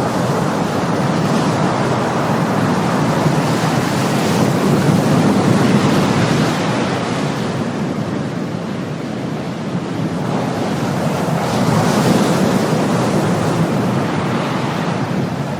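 Ocean surf: a continuous wash of waves that swells twice and eases in between.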